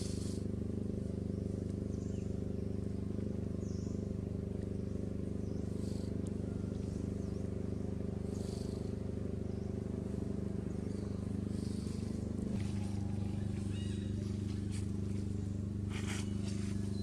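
A low, steady motor hum with a constant pitch, stepping slightly in pitch about twelve seconds in. Faint high chirps come and go over it.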